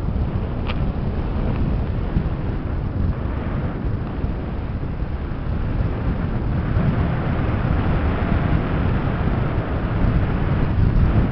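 Wind rushing over the microphone of a camera on a paraglider in flight, a steady low rumble that gains more hiss from about six seconds in. A brief click sounds near the start.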